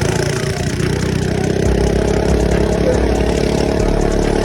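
Mini bike's small engine running steadily at an even speed.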